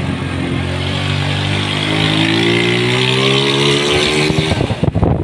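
Motorbike engine accelerating, its pitch rising steadily for a few seconds, then wind buffeting the microphone near the end.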